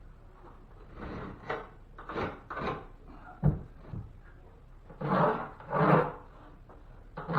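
Rubbing and scraping strokes on wood, irregular and noisy, with a single sharp knock about three and a half seconds in and two longer, louder scrapes near five and six seconds.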